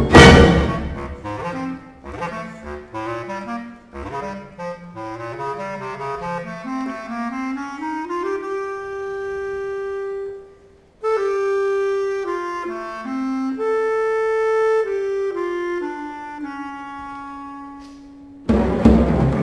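Bass clarinet solo in a concerto. After a loud orchestral hit at the start, the bass clarinet climbs in a run of short notes from its low register into held notes. It breaks off briefly about ten seconds in, then plays a slower, descending melody of long sustained notes. The full orchestra comes back in loudly near the end.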